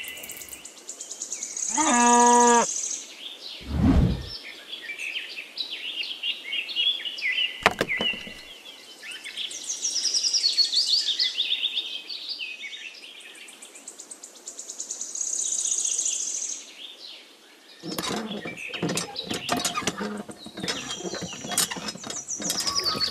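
Birds chirping and twittering, with a short pitched call about two seconds in and a low thud near four seconds. From about eighteen seconds a dense run of small clicks and rattles comes in.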